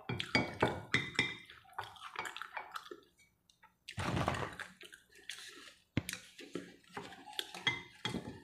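Close-up eating sounds: wet slurping, smacking and chewing of chicken noodles, in quick short strokes. About four seconds in there is a noisy rustle lasting about a second while crackers are taken from their container, then the chewing and smacking resume.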